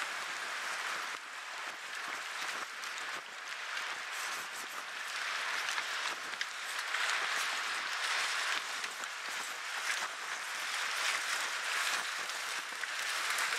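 Continuous splashing and rushing of choppy lake water as a retriever bounds through the shallows, swelling and easing.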